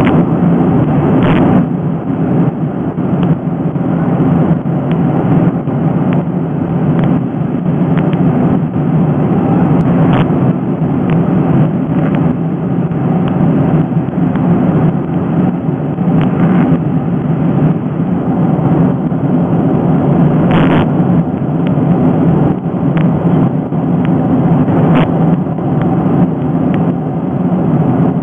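Jet airliner cabin noise in flight: a loud, steady, low rush of engine and air noise heard inside the cabin, with a few faint brief clicks.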